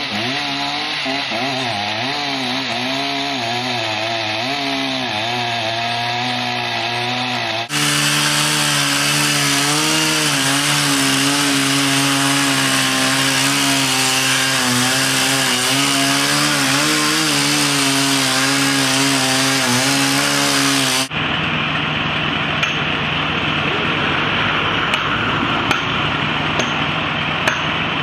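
Chainsaw running under load as it cuts into the trunk of a large horse chestnut at its base, its engine note wavering as the chain bites. The sound changes abruptly twice, about 8 and 21 seconds in, where the recording is cut.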